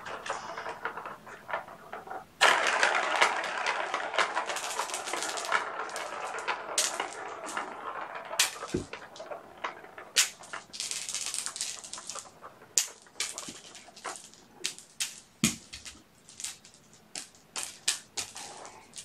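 A plastic ball rattling as it rolls around a circular cat track toy. It starts suddenly a couple of seconds in and slowly dies away, and is followed by scattered sharp clicks and taps.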